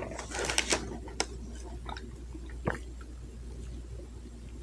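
Close-miked chewing of food: wet, squishy mouth clicks and smacks, bunched in the first second, then a few single smacks spaced out, over a steady low hum.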